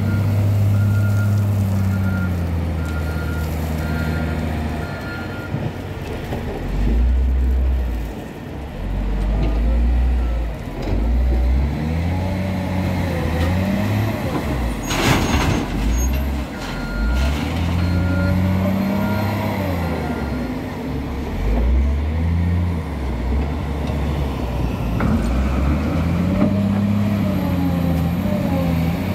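Caterpillar 966H wheel loader's diesel engine revving up and falling back again and again through its loading cycles. A reversing alarm beeps near the start and again a little past halfway, and a short loud burst of noise comes about halfway through.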